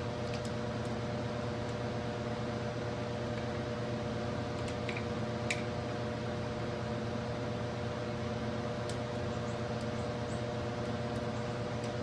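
Steady mechanical hum of room background noise, made of a few fixed low tones over a soft hiss, with a few faint light clicks in the middle.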